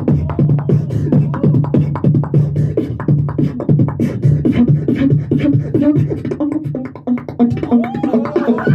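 Live beatboxing into a handheld microphone through a PA: a steady low bass tone under rapid clicking snares and hi-hats, with wavering, pitch-bending vocal sounds near the end.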